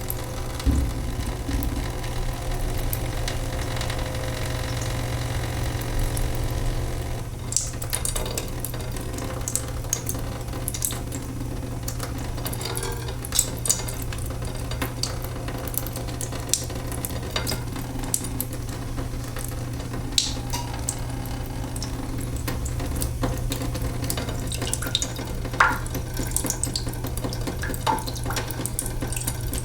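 A leaking sink: water trickling and dripping into the basin. There is a steadier trickle at first, then from about seven seconds in many scattered sharp drips and small splashes, all over a steady low hum.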